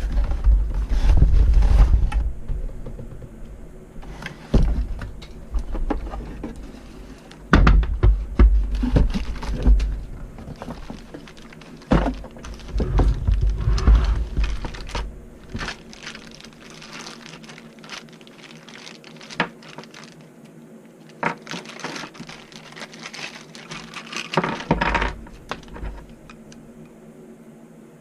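Knocks, thunks and rustling from handling a 3-in-1 stock-tank de-icer and its packaging: irregular clatter with heavy low bumps in the first half, then lighter clicks and rustles.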